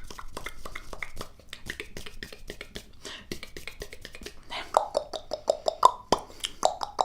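ASMR mouth sounds: rapid wet clicks, smacks and tongue pops close to the microphone, growing louder and more hollow about four and a half seconds in, with several pops a second.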